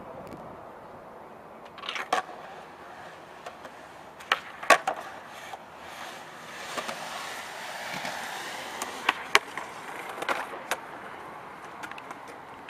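Skateboard wheels rolling over asphalt, broken by sharp wooden clacks of the board popping and landing during tricks. The loudest clacks come about five seconds in and again near nine seconds, with a steadier roll in between.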